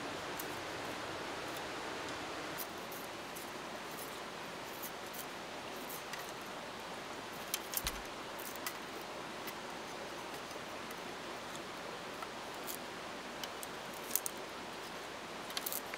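Machete blade working a thin green bamboo stem, splitting and peeling off a strip: scattered small sharp cracks and scrapes, a few in quick clusters, over a steady hiss.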